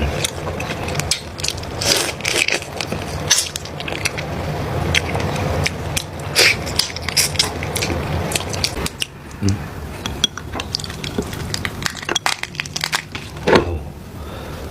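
Close-up eating sounds: seafood shells being cracked and crunched, with chewing, as a series of irregular sharp crackles and cracks.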